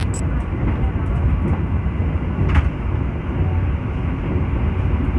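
Running noise of a passenger train at speed, heard from inside the carriage: a steady low rumble of wheels on the rails, with one sharp click about two and a half seconds in.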